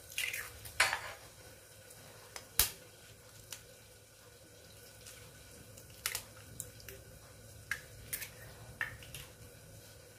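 Hen's eggs being cracked open with a metal fork over a glass bowl: a string of sharp, irregular taps and clinks, the loudest about one second and two and a half seconds in.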